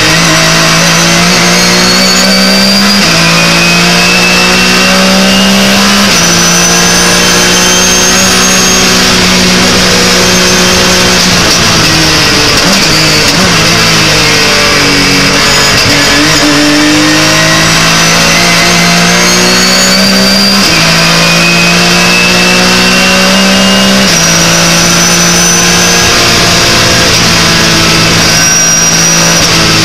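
Porsche 911 GT3 Cup's flat-six engine at race pace, heard from inside the cockpit. It pulls hard with quick upshifts about three and six seconds in, falls through downshifts as the car slows in the middle, then climbs again with upshifts about twenty-one and twenty-four seconds in. A thin high whine rises and falls with speed above the engine note.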